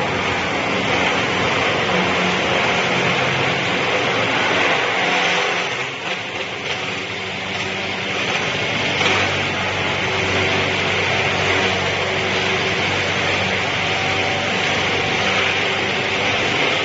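Wood chipper sawdust machine running steadily with a continuous motor hum and loud high grinding hiss, the level dipping briefly about six seconds in.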